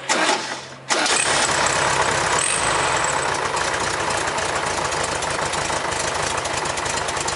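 1974 Volkswagen Super Beetle's air-cooled flat-four cranked by the starter for under a second, then catching about a second in and running steadily. The fan belt is off, so the alternator and cooling fan are not turning.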